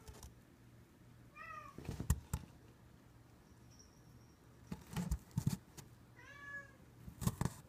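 A cat meows twice, once about a second and a half in and again near the end, each call rising and then falling. Several sharp knocks and clatters come in between, louder than the meows.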